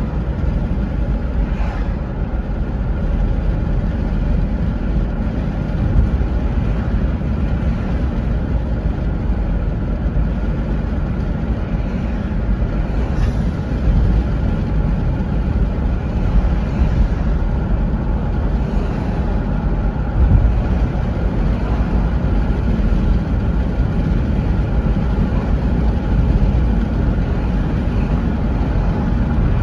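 Steady low rumble of a car driving, its engine and tyres on the road heard from inside the cabin.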